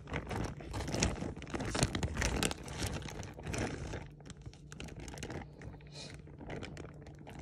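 Zip-top plastic bag crinkling and rustling as hands hold it open and move it, in dense irregular crackles that turn to softer rustles after about four seconds.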